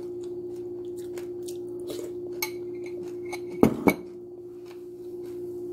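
A spoon clinking and scraping in a cereal bowl, with small taps and two louder knocks a little past halfway, over a steady low hum.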